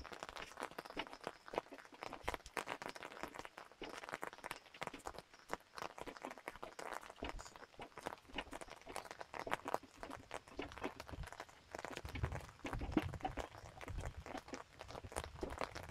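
Footsteps of someone walking down a rain-soaked dirt and grass path, an irregular run of soft steps and scuffs, with a few heavier low bumps near the end.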